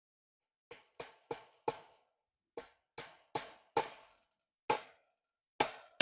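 Hammer blows, about ten sharp strikes in uneven groups starting just under a second in and getting louder toward the end, fastening wire fencing to a wooden gate post.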